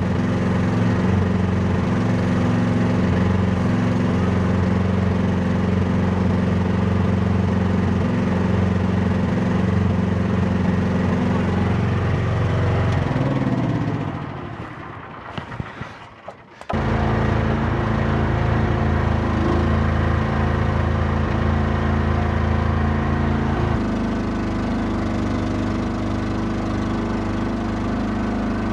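Small excavator's engine running steadily. About two-thirds through, its note sinks and the sound fades for a few seconds, then comes back suddenly at full level. Near the end the engine note shifts slightly.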